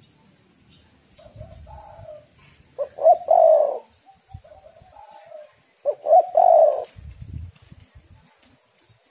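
Spotted dove cooing: softer coos, then a loud phrase about three seconds in and another like it about three seconds later.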